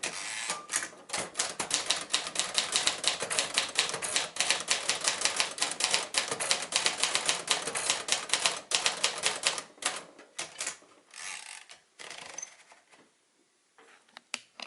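A 1954 Royal Quiet De Luxe manual typewriter being typed on quickly, its typebars striking several times a second in an even clatter. After about ten seconds the typing breaks off into a few scattered mechanical sounds, then it goes nearly quiet.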